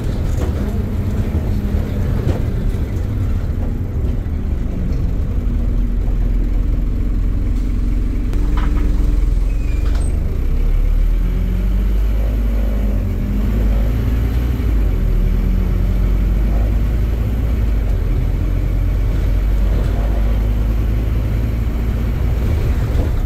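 Scania bus engine and drivetrain heard from inside the passenger saloon while under way: a loud, steady low rumble whose pitch rises and falls several times as the bus speeds up and slows.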